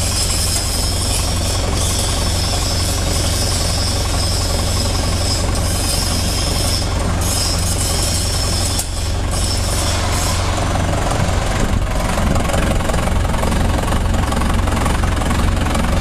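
Trailer concrete mixer pump running steadily with a deep hum, growing a little louder about eleven seconds in.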